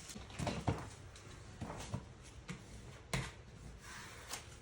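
Painter's tape being torn off and pressed onto a car's glass roof: a handful of short rips, rubs and taps a second or so apart.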